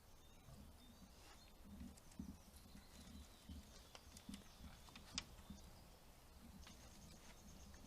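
Faint, irregular soft thuds of a hoofed animal stepping and moving in the mud wallow, with a few faint bird chirps and one sharp click about five seconds in.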